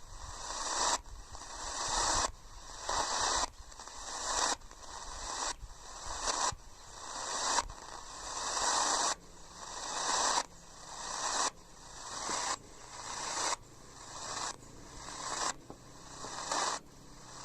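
Radio receiver hiss and static, tuned to the medium-wave band, in a repeating pattern of about one burst a second. Each burst swells and then cuts off suddenly, like pulsed interference.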